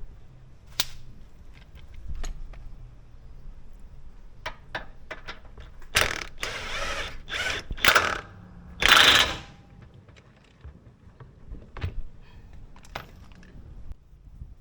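Mechanic's tools working on a car's front suspension: scattered metal clicks and knocks, with two louder bursts of rasping noise about six and nine seconds in.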